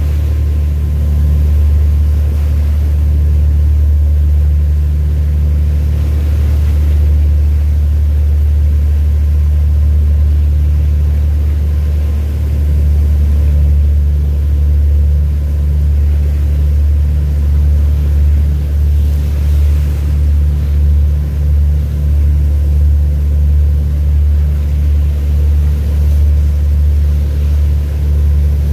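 A large engine's steady low rumble with faint steady tones over it, turning into a regular throb of about two beats a second in the second half.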